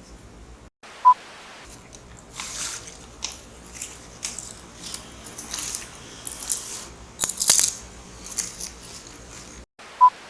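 A short beep about a second in, then a run of sharp, crisp crunches of a crunchy snack being bitten and chewed, and another short beep near the end.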